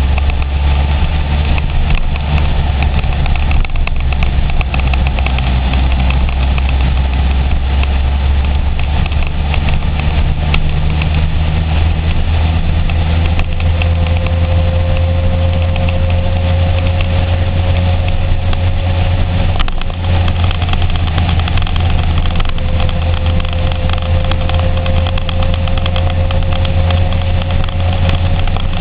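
Honda CBR900RR's inline-four engine running steadily under way, with a loud, steady rush of wind and road noise. A faint steady whine comes in about halfway through.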